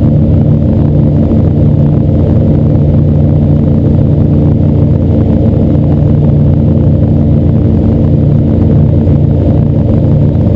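Boat motor running steadily at constant speed, loud and close, with a steady hum that neither rises nor falls.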